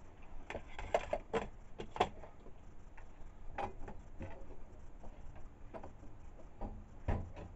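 Scattered light metallic clicks and knocks from a small bench milling machine being adjusted by hand to set a further 0.020 in depth of cut. The last knock, near the end, is the loudest.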